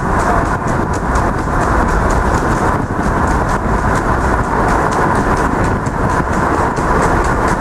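Steady rushing noise of tyres on a wet road and wind, heard from a moving car, with faint light ticks above it.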